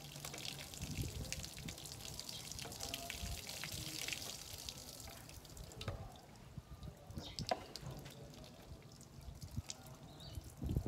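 A drink poured from a plastic bottle into a glass, with a fizzing hiss that swells and then fades over about the first five seconds. This is followed by a few knocks and clicks as the bottle is set down on the glass tabletop.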